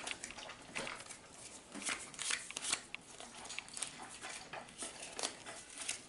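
Pokémon booster pack foil wrapper and cards being handled, making an irregular run of light crinkles and small clicks.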